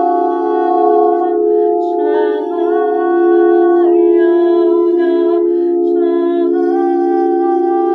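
Singing bowls holding a steady drone, with wordless sung tones from a voice gliding between long held notes above it, with breaths between phrases.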